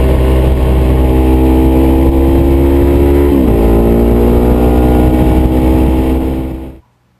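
Sportbike engine pulling hard at speed, its pitch climbing steadily, dropping sharply once about halfway through as it shifts up a gear, then climbing again. Heavy wind rumble on the onboard microphone runs underneath, and the sound fades out quickly near the end.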